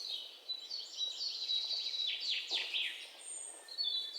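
Birds chirping and singing: a run of high chirps and trills, with several quick falling calls around the middle.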